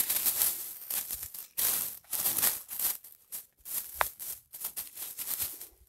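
Leaves, stems and grass rustling and brushing in irregular bursts as they are pushed through by hand, with a brief squeak about four seconds in.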